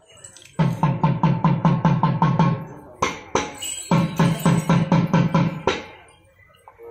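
Traditional Kerala temple drum struck in fast, even strokes, about seven a second, in two runs of about two seconds each with a couple of single strokes between them. A steady pitched tone sets in at the very end.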